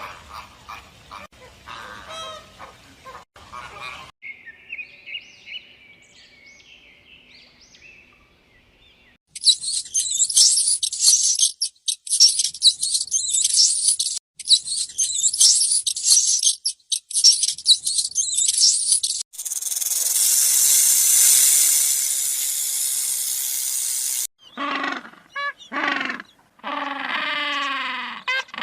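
A run of different animal calls cut one after another. First come faint calls and faint high chirps, then loud, rapid high-pitched chirping for about ten seconds. A steady hiss follows for about five seconds, and near the end a few harsh calls fall in pitch.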